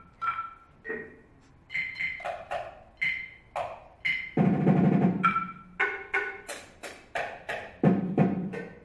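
Small tabletop percussion instruments struck with sticks and mallets in an uneven rhythm: short, sharp knocks and clicks, many with a brief pitched ring. One longer, rougher sound comes about halfway through.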